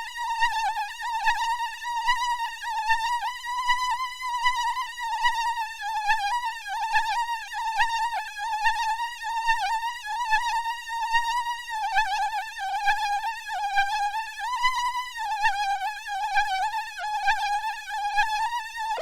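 Mosquito whine sound effect: a continuous high-pitched buzzing tone that wavers slightly in pitch and swells and fades in loudness about once a second.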